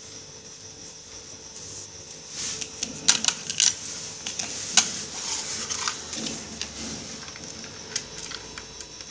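Scattered clicks and taps as a screwdriver, small screws and a plastic switch plate are handled on a tabletop, sharpest and thickest from about two and a half to five seconds in, then sparser. A faint steady high whine runs underneath.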